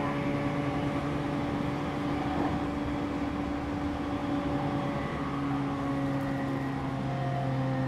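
JR E231 series electric multiple unit standing at the platform, its onboard equipment giving a steady electrical hum with a few droning tones. Some of the tones shift slightly lower in pitch in the second half.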